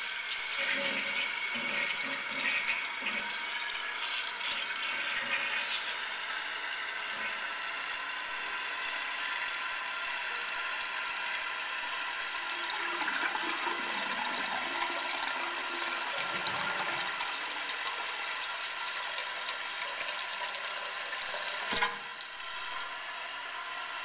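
Toilet tank refilling: water hissing steadily through the fill valve and refill tube into the tank of a 1974 Kohler Cayuga toilet. A single sharp knock comes near the end, after which the hiss is a little quieter.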